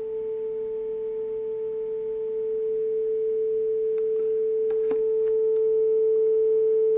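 Steady single-pitch test tone played through a speaker driven by the repaired left rear channel of a JL Audio 300/4 car amplifier. It gets somewhat louder partway through, and there are a couple of faint ticks. The channel that was blown is passing signal again.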